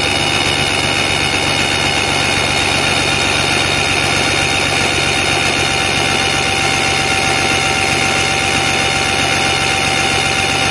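Mercury two-stroke outboard engine idling steadily on the stand while its idle ignition timing is checked, with a steady high whine over the running note.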